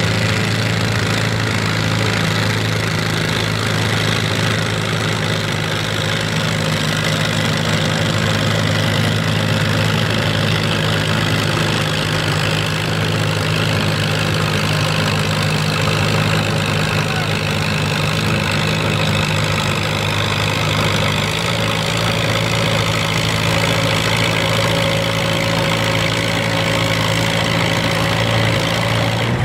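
Allis-Chalmers WD-45 farm tractor engine running steadily under heavy load as it drags a weight-transfer sled at a slow, even pull. The sound is a continuous engine drone at a constant level.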